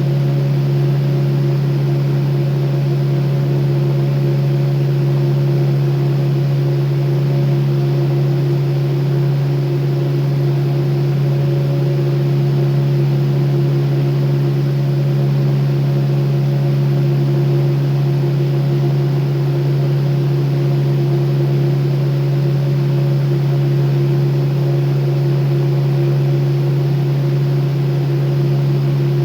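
Electric fan running steadily at one speed: a loud, even motor hum with a rush of air, never changing.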